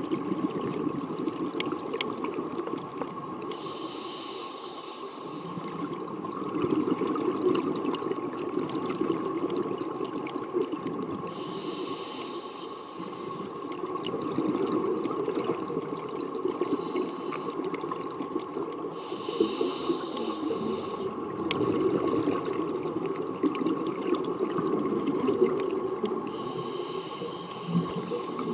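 Scuba diver's regulator heard underwater: muffled breathing, with a burst of hissing exhaust bubbles about every seven to eight seconds, four times in all, over a steady low underwater rumble and faint hum.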